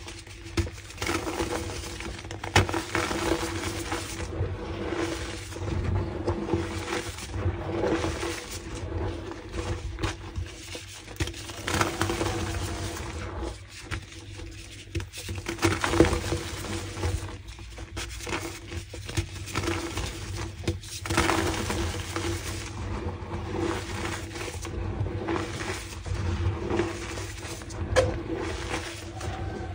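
Pink moulded gym chalk blocks being crunched and crumbled, an irregular run of dry crackling and crumbling with a few sharper snaps.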